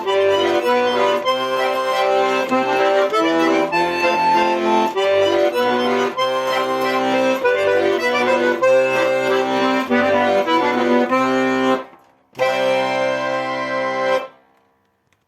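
Instrumental music ending a song: a melody over sustained chords and a bass line. About twelve seconds in there is a brief pause, then a final held chord that stops.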